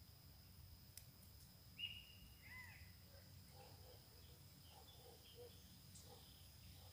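Near silence: faint outdoor ambience with a steady high faint tone and a few short bird calls, the clearest about two seconds in, one of them falling in pitch.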